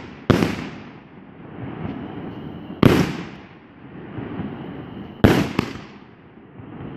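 Gold Brocade Bash 200-gram firework cake firing aerial shots: sharp bursting bangs about every two and a half seconds, two close together near the end, with a hiss between them.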